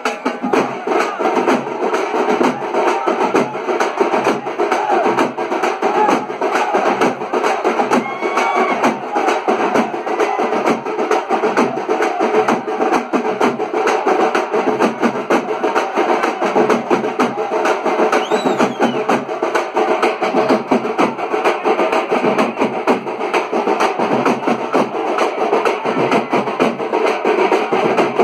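Festival drums playing a loud, fast, unbroken beat.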